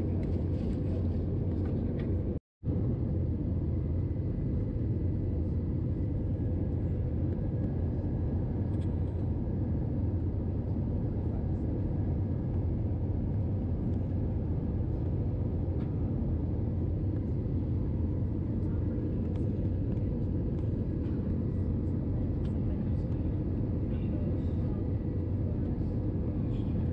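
Steady cabin drone of an Airbus A321-211 in cruise, heard inside the cabin at a window seat: its CFM56 engines and the airflow over the fuselage make a deep, even rumble with a faint steady hum above it. The sound drops out for a split second about two and a half seconds in.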